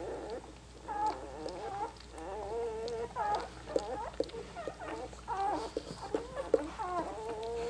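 Newborn German Shorthaired Pointer puppies squeaking and whimpering over one another in high, wavering cries that hardly stop, with short wet clicks as the mother licks them.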